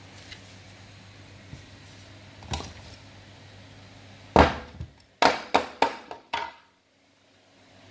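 Hard plastic knocks from the hand mixer's plastic housing being handled on the table: one knock, then a loud one, then four quick sharp knocks about a third of a second apart.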